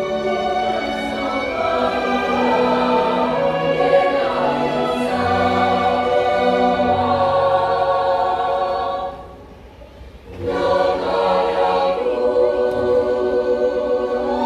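A choir of mostly children sings with an orchestra in long, sustained held notes. The music breaks off for about a second past the middle, then comes back with a final long held chord.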